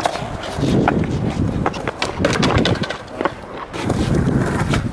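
Skateboard wheels rolling over wet concrete: a steady low rumble with scattered clicks and knocks.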